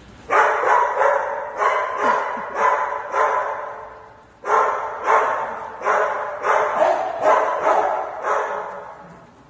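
A small dog barking over and over in play, about two barks a second, in two runs with a short pause about four seconds in.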